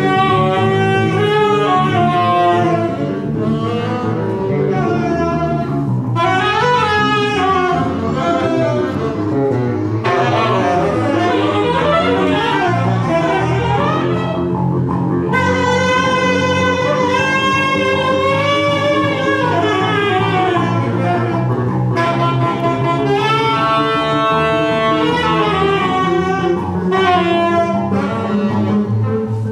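Live jazz-style ensemble music: a horn plays a wandering melody with several pitch bends, over steady low double bass notes.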